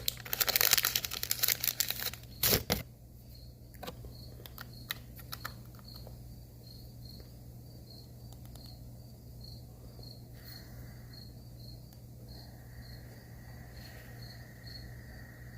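Crinkling, rustling handling noise in dense bursts for the first three seconds or so. Then a quiet stretch of a steady low hum with faint cricket chirps repeating about three times a second.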